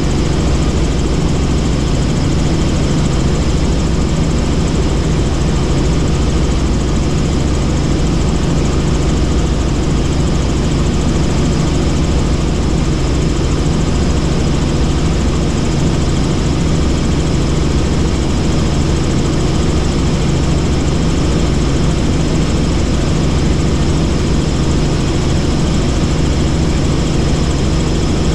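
Helicopter in flight: the steady drone of its engine and rotor, with a constant low hum and no change in pitch or loudness.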